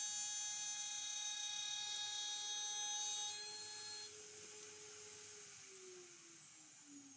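CNC router's AMB/Kress FME1050 spindle and machine whine running steadily, then switched off: the high whine cuts out about four seconds in and the spindle motor winds down with a falling pitch.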